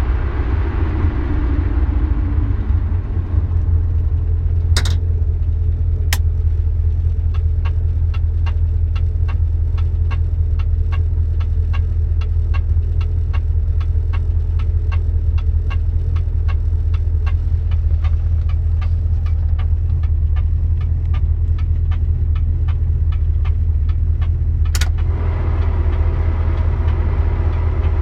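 A 1973 Dodge Dart's drivetrain running, with a steady low rumble and a fast, even light ticking from about four seconds in until near the end, plus a few louder clicks. The ticking is the unexplained noise the owner hears from the car's 904 automatic transmission.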